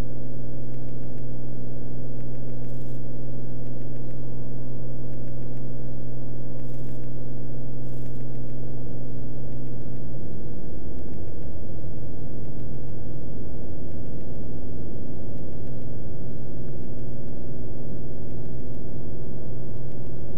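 Steady in-flight drone of a Beechcraft Bonanza F33's piston engine and propeller. The low note wavers briefly about halfway through, then settles again.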